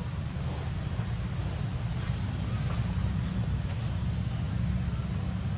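Steady, high-pitched drone of insects, unbroken throughout, over a continuous low rumble.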